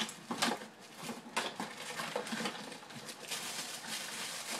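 Small toys clattering and rustling as someone rummages through a pile of them by hand: a scattered string of light clicks and knocks.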